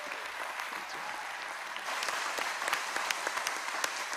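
Congregation applauding, the clapping growing fuller about two seconds in.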